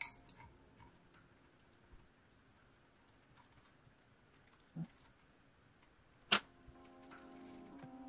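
Faint scratching and small clicks of a plastic stick scrubbing glue residue off the plastic underside of a Logitech G Pro Wireless mouse, with a sharper click at the start and a louder one about six and a half seconds in. Soft background music comes in near the end.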